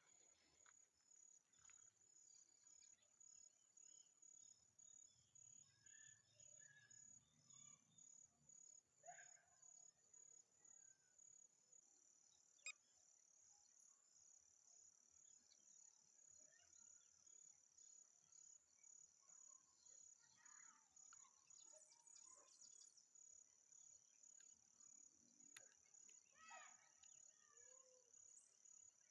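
Faint insect chorus, cricket-like, a steady high trilling that swells in regular pulses, with a few faint bird calls.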